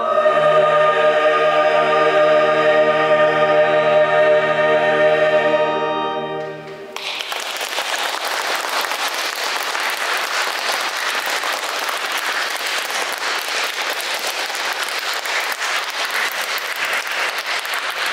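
A mixed choir sustains a final chord that dies away about six or seven seconds in, and then the audience applauds steadily.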